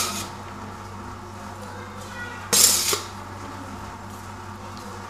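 A metal ladle scraping against a steel cooking pot while boiled rice is spread over a layer of chicken masala: one brief scrape at the start and another of about half a second midway, over a low steady hum.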